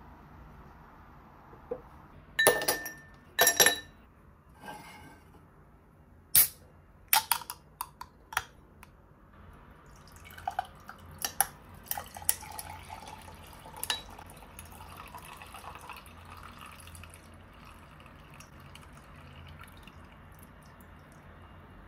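Ice cubes clinking into a drinking glass, a few sharp clinks over the first half, then a can of peach-flavoured carbonated drink poured over the ice, the cubes clinking as the liquid splashes and fizzes steadily.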